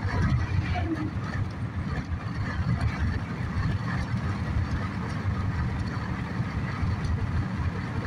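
Steady low rumble of a car driving at road speed, the tyre and engine noise heard from inside the cabin.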